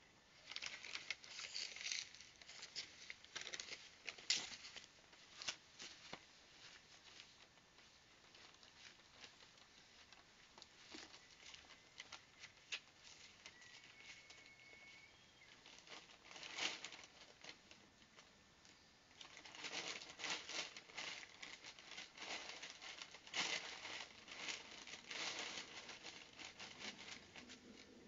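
Bird feed being handled and scattered, heard as bursts of crackly rustling and pattering: a cluster in the first few seconds, a short one in the middle, and several seconds more near the end.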